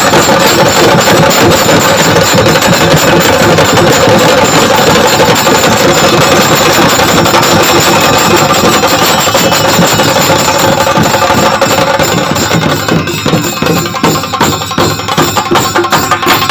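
A group of chenda drums beaten with sticks, very loud, in a fast, dense roll. About twelve seconds in, the roll opens into a sparser beat with distinct strokes.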